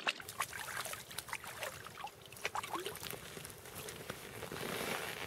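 Small irregular splashes and clicks of hands working fishing line in the slushy water of an ice-fishing hole.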